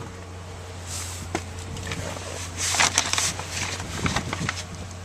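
Rustling and clicking handling noises, loudest and most crowded about three seconds in, over a steady low hum inside a vehicle cabin.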